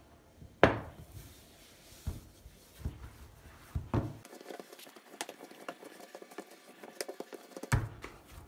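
Poğaça yeast dough being kneaded by hand on a floured countertop: irregular soft thumps and knocks as the dough is pressed and turned against the counter, the loudest about half a second in, with light patter between.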